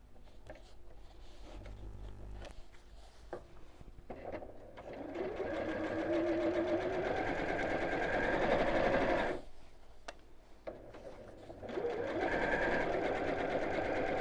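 Electronic sewing machine stitching binding onto a quilted fabric mat. After a few seconds of quiet fabric handling with small clicks, it starts about four seconds in and runs steadily for about five seconds. It then stops briefly and starts up again near the end.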